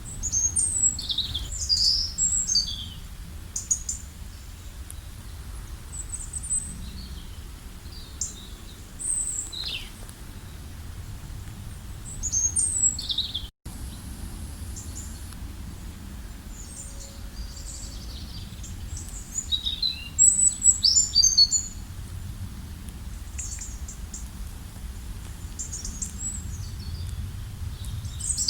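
Songbirds chirping and singing in short bursts of quick, high notes, over a steady low rumble. The sound cuts out completely for an instant about halfway through.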